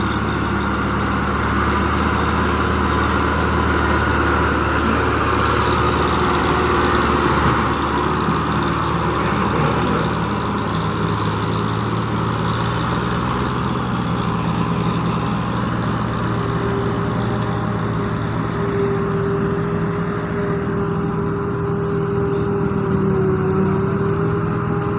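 Claas Jaguar self-propelled forage harvester running steadily while chopping maize for silage, a constant engine drone. A steady higher tone joins about two-thirds of the way through.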